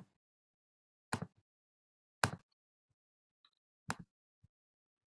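Computer mouse clicks: four sharp, unevenly spaced clicks about a second apart, several of them doubled like a button being pressed and released, with dead silence between.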